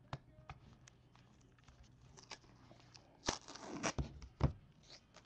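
Hands opening a sealed trading-card box: small clicks and scrapes of the lid and packaging, then a rustling slide about three seconds in as the contents are pulled out, followed by two thuds.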